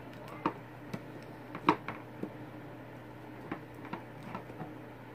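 Pliers and a stiff copper wire clicking and tapping in irregular small knocks as the wire is worked onto a switch connection; the sharpest click comes a little under two seconds in. A faint steady hum runs underneath.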